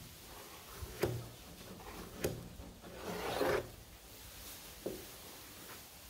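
Body filler being spread over a fiberglass hood with a filler spreader: faint scraping swipes and a few light taps, the longest swipe about three seconds in.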